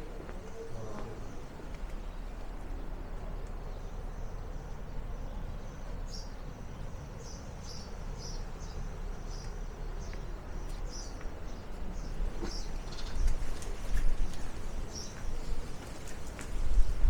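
A small bird chirping over and over in short, high-pitched notes, over a low rumble that grows louder near the end.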